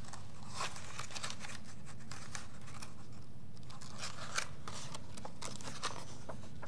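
Page of a hardcover picture book being handled and turned: a run of short, crisp paper scrapes and crackles. A steady low hum lies underneath.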